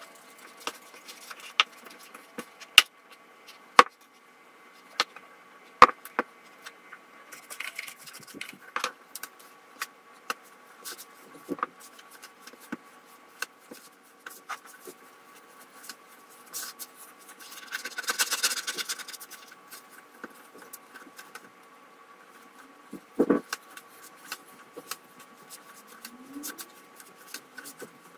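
Hands kneading a stiff egg dough on a kitchen countertop: irregular knocks, taps and squishes of dough and hands against the counter and bowl. A short scraping rustle comes about two-thirds of the way through and a thump a little after, over a faint steady hum.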